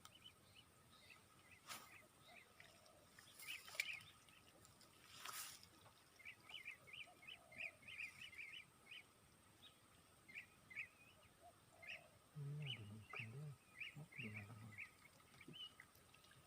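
Faint, quick chirps from small birds in several short runs. A few soft clicks come in the first few seconds, and some low murmurs come near the end.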